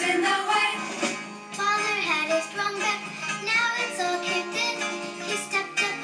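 Music with a sung vocal line and a steady beat, played over a speaker in a small room.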